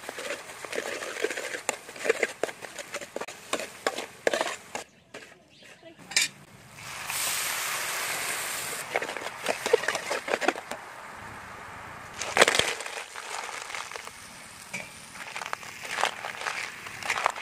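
Metal spatula scraping and clinking against a steel wok as chili paste is stir-fried, with frying sizzle. A steady sizzling hiss rises for a couple of seconds near the middle, and about two-thirds through there is one louder clatter.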